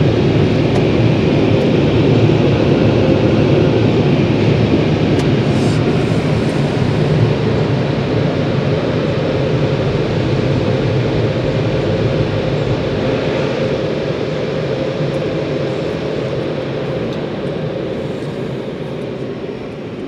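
Steady mechanical roar with a faint hum, heard from inside a car's cabin, slowly fading over the second half.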